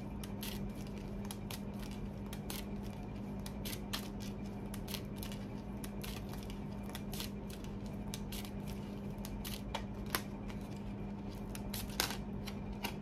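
A deck of oracle cards being shuffled by hand: a run of irregular crisp clicks and flicks as the cards are riffled and slid against each other, over a steady low hum.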